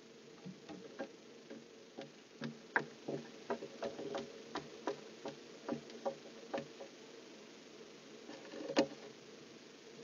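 Irregular taps and knocks on the wooden nest box, several a second, as a barn owl moves on the ledge and leaves it, with one louder knock near the end.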